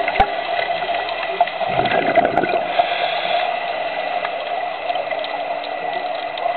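Underwater ambience picked up through a camera's waterproof housing: a steady muffled rushing hiss with scattered crackles and some bubbling gurgles, over a faint steady high tone.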